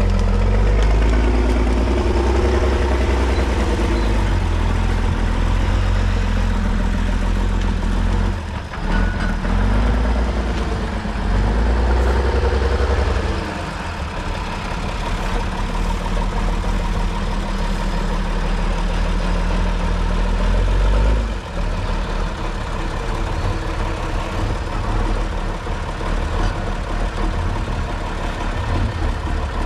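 Praga V3S trial truck's diesel engine working under load off-road, its revs swelling and falling several times. After about 13 seconds it drops back to a lower, steadier run.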